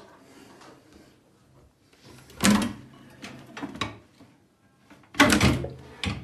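Fold-away pivoting washbasin being swung out of its wall recess, with two loud knocks about three seconds apart and softer rattles between.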